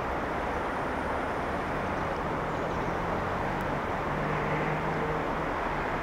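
Steady rumble of distant road traffic, with a low engine hum that grows in the middle and fades near the end.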